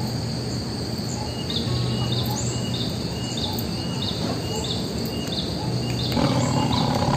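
Outdoor garden ambience: insects droning steadily at a high pitch, with a short chirping call repeating about every half second. A low hum comes and goes underneath.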